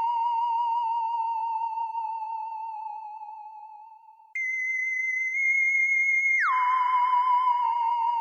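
Electronic alien sound effect: a warbling tone sinks slightly and fades away over the first four seconds. A higher steady tone then cuts in suddenly, steps up a little, and slides back down into the lower warbling tone about six and a half seconds in.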